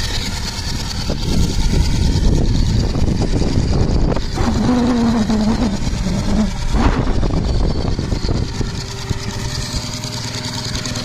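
Scale model Case steam traction engine running fast on its governor, its steam engine working at full set speed with a steady, continuous machinery sound.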